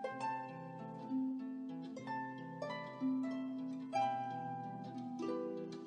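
Background music: a slow plucked-string melody, each note starting sharply and ringing out as it fades, roughly one or two notes a second.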